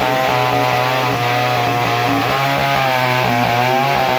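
Two-stroke chainsaw running at full throttle while its chain cuts through a log, its pitch wavering as it bogs in the cut.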